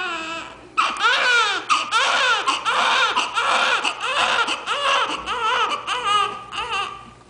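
Newborn baby crying. A cry trails off at the start; then, after a short catch of breath about a second in, comes a long run of short, rapid wails rising and falling in pitch, fading near the end.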